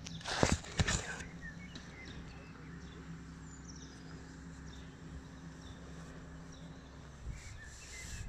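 Cat's long fur brushing against the phone's microphone: two loud rustles in the first second. Then faint birds chirp over a steady low hum.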